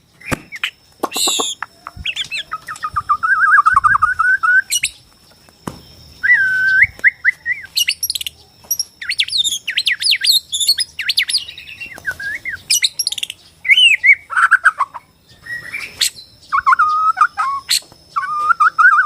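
A white-rumped shama singing a varied song of loud whistled phrases and rapid rattling trills, broken by short pauses.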